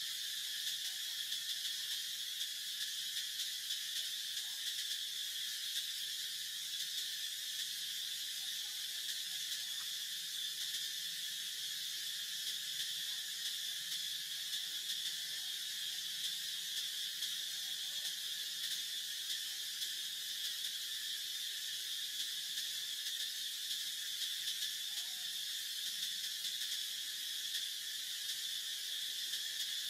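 Steady insect chorus: an unbroken high-pitched drone that neither rises nor falls.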